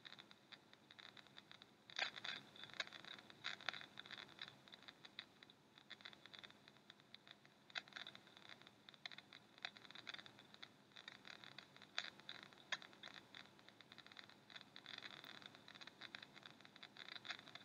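Faint, irregular clicking and scratching over a steady low hiss on the relayed audio, a few clicks a little louder than the rest.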